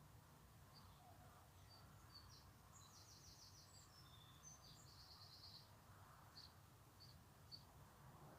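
Faint birds chirping in the early morning: scattered short high chirps, with two quick rapid trills about three and five seconds in, over a low steady background rumble.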